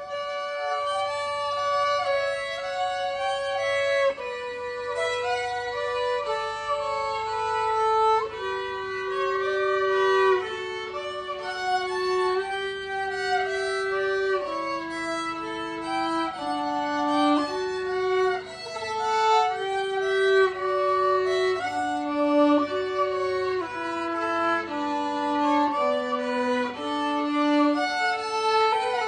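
Violin duet: two violins playing a march together, held notes moving stepwise in two parts.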